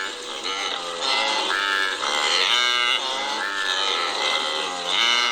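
An animal calling: a run of pitched calls, one after another.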